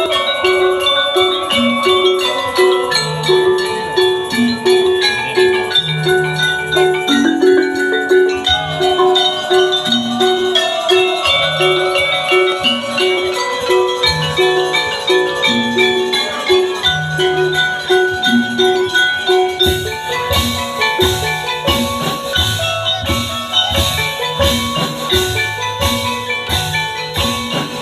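Tongklek music: an ensemble of tuned bamboo percussion and drums plays a brisk, repeating pattern of struck notes over a steady low pulse. About twenty seconds in, a brighter, denser layer of strikes joins.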